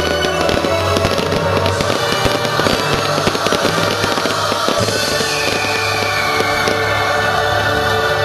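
Fireworks bursting and crackling over the show's soundtrack music, a dense rapid crackle that thins out about five seconds in while the music carries on.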